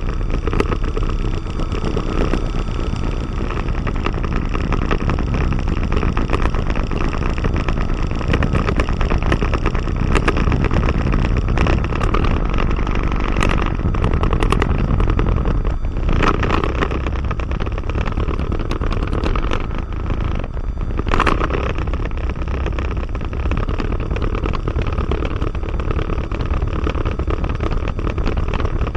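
Diamond DA20-C1's four-cylinder Continental IO-240 engine and propeller running at taxi idle, heard from inside the cockpit as a steady drone. It is broken by a couple of brief sharper crackles around the middle.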